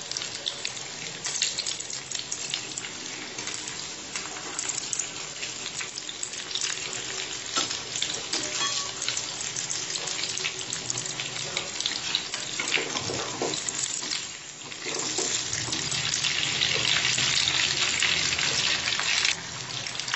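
Potato-and-poha cutlets deep-frying in hot oil in a kadhai over a high gas flame, the oil sizzling and crackling steadily. After a brief dip, the sizzling grows louder for a few seconds near the end.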